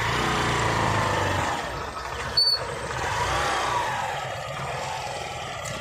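Motorcycle engine running, strongest in the first second and a half, with a single short sharp click about two and a half seconds in.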